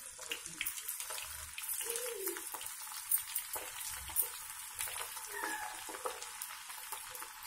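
Batter-coated chicken pakoda pieces deep-frying in hot oil in a kadai: a steady sizzle with many small crackles as freshly dropped pieces bubble in the oil.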